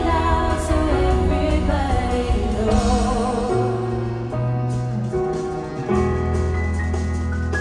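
Live pop ballad performance: a woman singing with vibrato over keyboard and bass accompaniment for the first few seconds, after which the band carries on with long held low bass notes.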